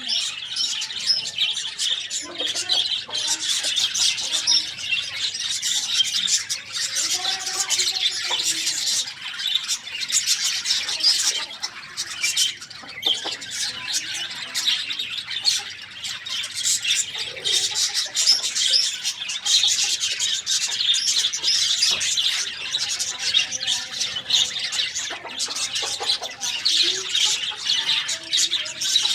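A dense, continuous chorus of many birds chirping at once: quick, high, overlapping calls with no break, and faint lower calls now and then beneath them.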